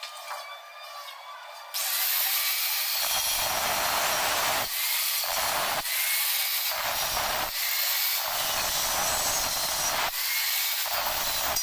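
Handheld angle grinder with a cut-off disc cutting through a steel bar. It starts just under two seconds in and then runs steadily, going heavier in about five spells as the disc bites into the metal.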